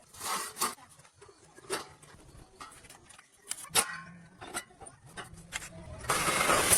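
Scattered clicks and taps of metal being handled, then about six seconds in a steady hissing crackle starts abruptly, as an arc welder strikes up on the steel of an excavator bucket.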